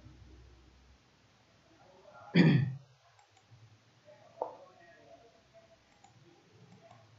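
Two clicks close to the microphone: a loud, short one about two and a half seconds in and a sharper, fainter one about two seconds later.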